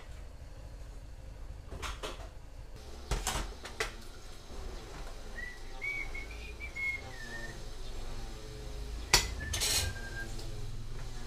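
Dishes and cutlery clinking in a kitchen sink as they are washed by hand, a few sharp knocks among them. Partway through, a man whistles a short wavering tune, with one more brief whistled note near the end.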